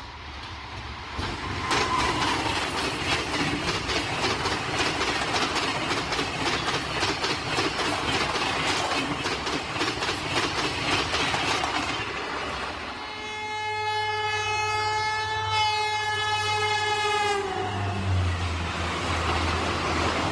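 Rajdhani Express trains passing at speed, the coaches clattering rapidly over the rail joints. About thirteen seconds in, a train horn sounds for about four seconds, dropping slightly in pitch as it ends; a low steady rumble of a passing train follows.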